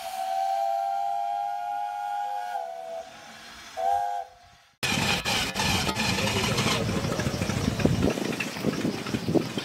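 A steam whistle sounds a long blast that steps down in pitch, then a short second blast. About five seconds in, it cuts suddenly to a WW1 biplane's engine running with its wooden propeller turning. The low rumble drops away near the end as the propeller slows.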